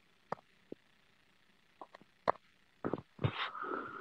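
A handful of soft, separate clicks spaced irregularly, then, about three seconds in, a short low murmur with a faint steady tone that carries on to the end.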